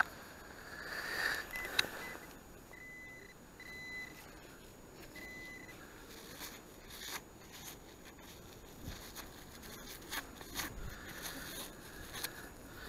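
Faint metal detector beeps, all at one high pitch: two short beeps, then four longer ones over about three seconds, signalling metal in the dug-out sand. Soft scrapes and clicks of handling in sand follow.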